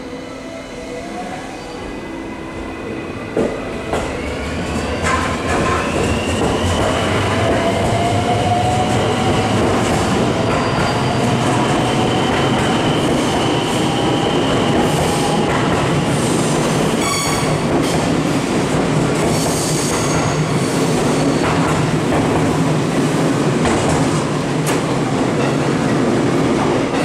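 A JR West 223 series 2500 electric train, two units coupled, pulling away: its traction motors whine, rising in pitch over the first several seconds as it accelerates. Then the cars roll past with a steady rumble and rhythmic wheel clicks, with a brief high squeal about two-thirds of the way through.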